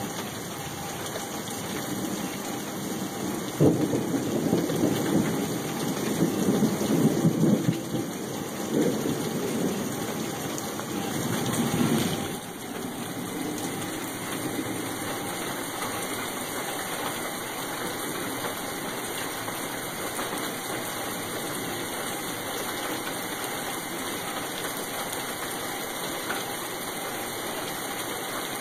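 Thunderstorm: a thunderclap breaks about three and a half seconds in and rumbles on until a sudden drop about twelve seconds in, over steady rain. Frogs call through the rain.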